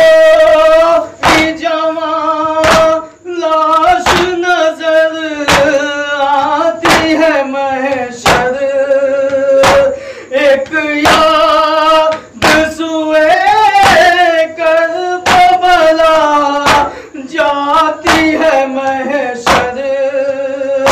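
A male noha reciter singing a Muharram lament in long held lines, over a steady beat of sharp chest-beating (matam) slaps at about three every two seconds.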